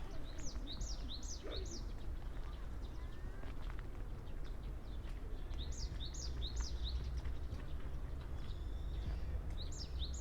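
A songbird singing a short phrase of about four quick, high, down-slurred notes, repeated three times a few seconds apart, over a steady low rumble.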